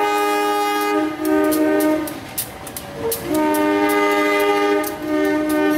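CC 201 diesel-electric locomotive sounding its multi-note air horn in two long blasts about a second apart, each with a brief break near its end.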